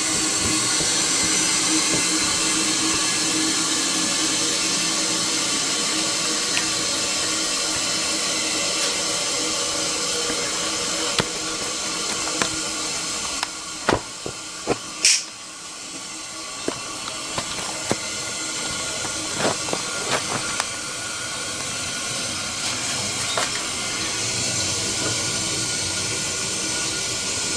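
Toilet tank fill valve hissing steadily as water keeps running in, with faint steady tones riding on the hiss; a few sharp clicks come partway through. The valve is not closing, so the water runs non-stop.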